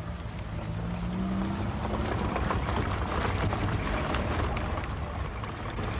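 Car engine and road noise heard from inside the cabin, the engine note rising in pitch over the first two seconds as the car accelerates, then a steady rumble with wind and tyre noise.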